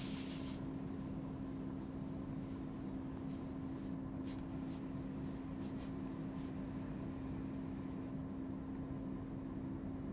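Ballpoint pen writing on bare skin: a run of short, light scratching strokes a few seconds in, over a steady low hum of room tone.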